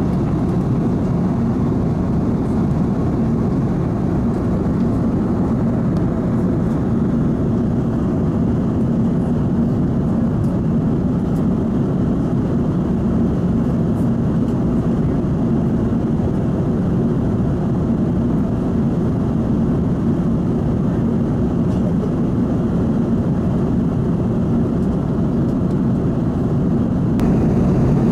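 Steady deep cabin roar of an Airbus A330-900neo at cruise: its Rolls-Royce Trent 7000 engines and the airflow over the fuselage, heard from inside the cabin. It steps up slightly in level near the end.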